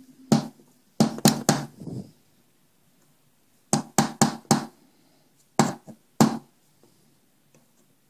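Sharp taps and knocks at a workbench, about ten in three quick groups with quiet between.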